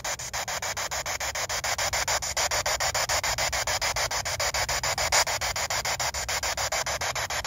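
SB7 spirit box sweeping through the FM radio band, its speaker putting out hissing static chopped into rapid, even pulses many times a second as it jumps from frequency to frequency.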